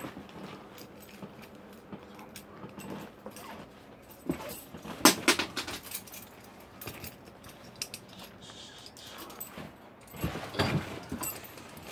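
Scattered clicks, knocks and a light jangle of small hard objects, with one sharp click about five seconds in.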